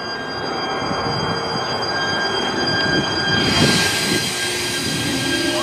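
JR Shikoku 8600 series electric express train pulling away and running past close by, growing louder. About three and a half seconds in, the hiss of wheels and running gear jumps as the cars come alongside, and near the end a rising whine begins as it picks up speed.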